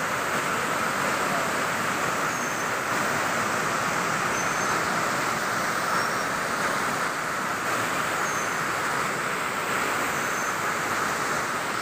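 Waterfall: white water cascading over rocks in a steady, even rush, with faint short high chirps every couple of seconds.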